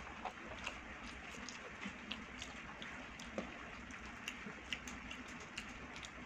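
Fingers mixing cooked rice with curried vegetables on a stainless-steel plate: scattered soft, wet clicks and squishes at irregular intervals over a low steady hiss.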